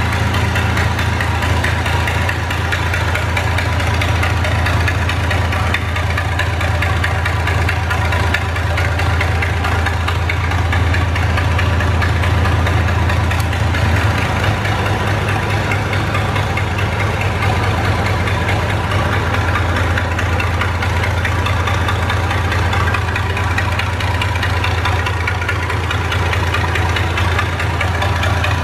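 Big old diesel engine running steadily and loudly, a strong low drone with a slight shift in its note about halfway through.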